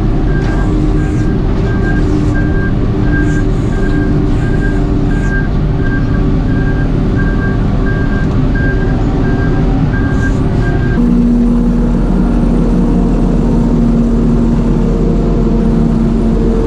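Timber cutter's diesel engine running steadily under a repeating high beep like a travel or reverse alarm. About eleven seconds in the beeping stops and the engine settles into a steadier, higher hum.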